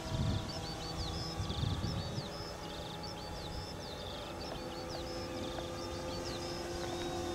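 Distant drone of a large radio-controlled Stampe SV4 biplane's brushless electric motor (Turnigy G160) and 19x8 wooden propeller in flight, a steady tone that rises a little and grows louder near the end. A songbird sings repeatedly throughout, and wind rumbles on the microphone in the first couple of seconds.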